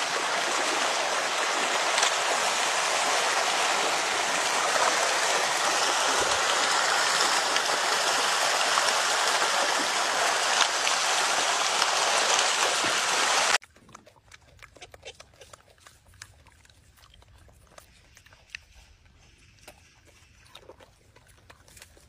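Rushing water of a shallow river running over rocks, a steady hiss that cuts off suddenly a little past halfway, leaving only faint scattered clicks and rustles.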